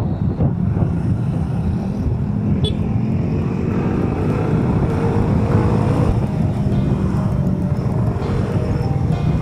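Motorcycle under way: its engine running steadily, mixed with wind rush on the microphone.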